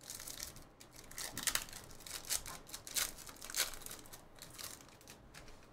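Foil wrapper of a Panini football card pack being torn open and crinkled: a run of sharp crackles and rips, strongest through the middle and dying down near the end.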